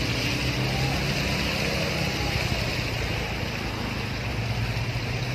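Steady rush of floodwater flowing over a road, with a low engine hum underneath.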